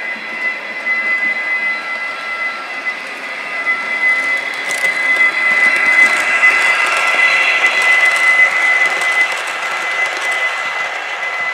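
H0-scale Märklin model train, a Flixtrain locomotive with coaches, running past on the layout track. Its motor gives a steady high whine over the rolling of the wheels on the rails, growing louder as the train passes close about six seconds in, then easing.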